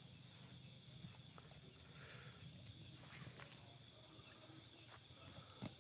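Near silence: faint night-time forest background with a few small ticks, and one brief louder sound just before the end.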